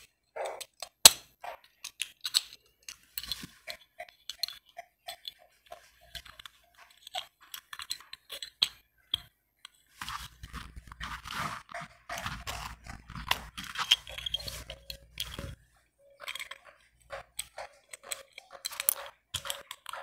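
Small metal padlock being worked at the ear: a string of sharp clicks and clinks as the shackle is pushed into the lock body and snapped shut. About ten seconds in there is a few-second stretch of rubbing and rustling as hands and hair brush close by.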